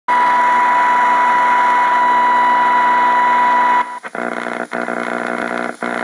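An AM radio's speaker gives off loud static while the dial is turned between stations: a steady high whine over harsh buzzing. About four seconds in, the whine stops abruptly and the sound changes to a lower-pitched buzz that drops out briefly three times.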